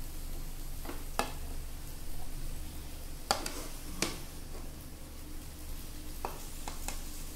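Wooden spatula scraping and tapping in a non-stick pan as stir-fried noodles are lifted out onto a plate, with a few sharp taps and a faint sizzle underneath.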